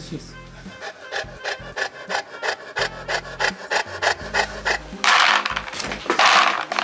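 Dry dog kibble pouring into a plastic tub with a loud rattling rush, starting about five seconds in. Before that, a Saint Bernard panting rapidly, about four short breaths a second.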